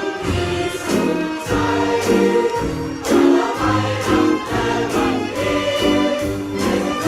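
A group of people singing a song together with a live band accompanying them, held notes moving over a steady bass.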